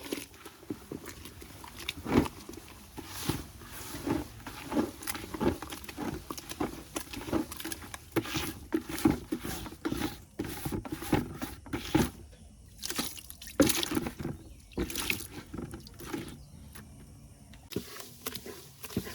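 Irregular wet splashing and dripping, a few short strokes a second.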